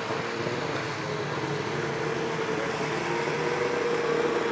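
Snowmobile engine running steadily at an even, held pitch, getting slightly louder near the end.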